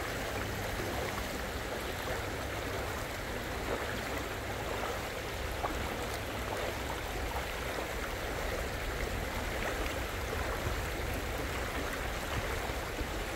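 Floodwater flowing, a steady even rushing noise with no change in level.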